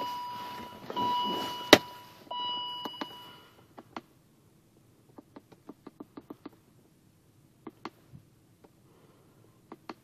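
A high electronic beep sounding in long pulses for the first three seconds or so, with one sharp click about two seconds in. Then comes a run of light clicks from keypad presses on a handheld OBD scan tool.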